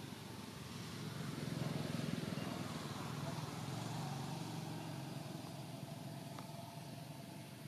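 Low engine rumble of a motor vehicle passing at a distance, swelling to its loudest about two seconds in and then slowly fading.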